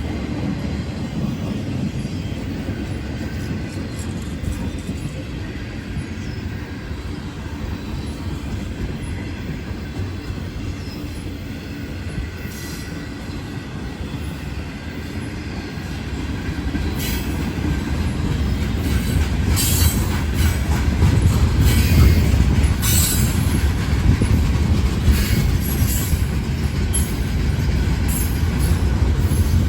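Norfolk Southern freight train's cars rolling past: a steady rumble of steel wheels on rail that grows louder about halfway through, with short high-pitched wheel squeals and clicks in the second half.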